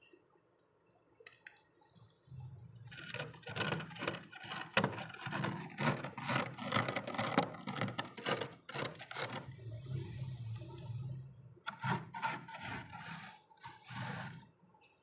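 Thick, fluffy freezer frost being scraped and dug out with a knife blade and fingers, giving a fast run of crisp scraping and crunching strokes. The strokes start about two seconds in, pause briefly, and come again in a shorter burst near the end.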